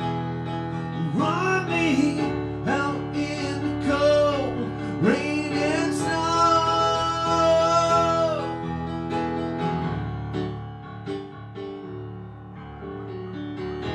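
Live band playing an instrumental passage on keyboards and drums. A lead line slides up and down in pitch, then holds one long note. The playing drops quieter over the last few seconds.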